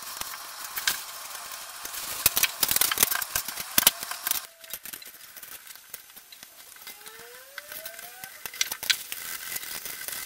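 Utility knife blade scraping and trimming the cork handle of a fishing rod, cleaning excess glue off the joint: a run of irregular scratchy strokes and small clicks, busiest and loudest a couple of seconds in. Near the end, sandpaper rubbing the cork.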